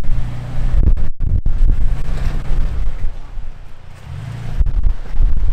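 Toyota Tacoma pickup's engine pulling in low gear as the truck crawls up over boulders. The engine works harder near the start and again near the end, with wind buffeting the microphone.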